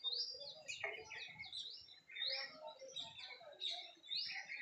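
Small birds chirping, with short rising whistled notes repeated about once a second over a busier chatter of calls.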